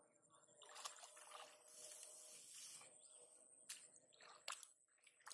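Faint sloshing and splashing of shallow muddy water as hands grope through it, swelling for a couple of seconds, then a few short sharp splats near the end.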